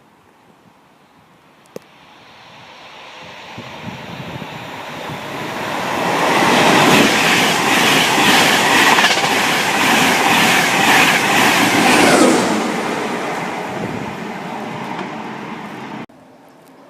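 A train approaching and passing at speed, its wheels clattering over rail joints at about two beats a second, dropping in pitch as it goes by and then fading away. The sound cuts off abruptly near the end.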